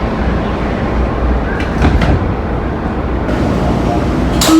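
Washington Metrorail car noise: a steady rumble, with a few knocks about a second and a half in as the doors slide shut after the closing announcement. A steady two-note door chime tone starts right at the very end.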